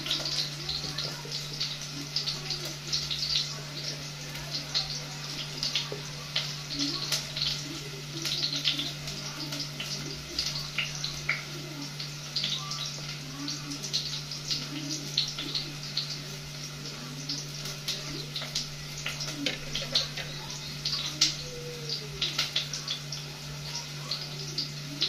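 Kitchen knife cutting a tomato held in the hand into small pieces: a run of irregular small wet clicks and snips over a steady low hum and a hiss.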